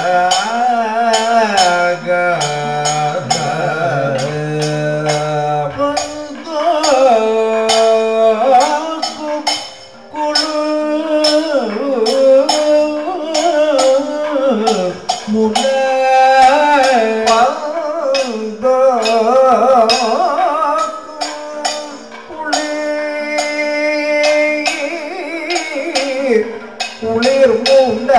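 Kathakali song: a male voice singing a padam in long phrases of held, wavering notes over regular sharp percussion strikes.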